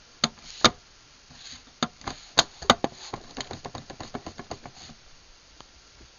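Plastic light cover of a Craftsman garage door opener being closed: a few sharp plastic clicks and snaps, then a quick run of lighter clicks that fade away.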